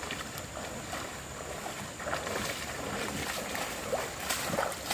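Steady rush of flowing stream water, with a few brief splashes and knocks in the second half.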